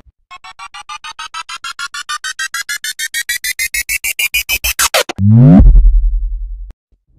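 Synthesized electronic sound effect: a rapid string of beeps climbing in pitch, speeding up and getting louder over about five seconds. It ends in a quick falling swoop into a low buzz that cuts off suddenly.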